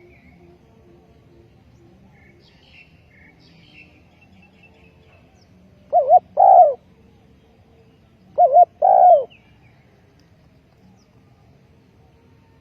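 Spotted dove cooing: two call phrases about two seconds apart, each a quick double note followed by a longer note that falls away at the end. Small birds chirp faintly in the background.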